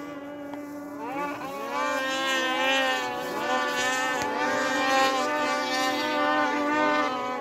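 A vehicle horn held in one long steady note, while from about a second in several engines rev up and down over it.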